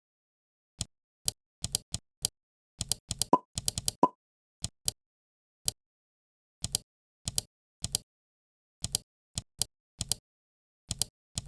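Irregular sharp clicks of a computer mouse and keyboard, in ones and quick runs of two to four, with dead silence between. Two of them, about three and four seconds in, carry a brief tone.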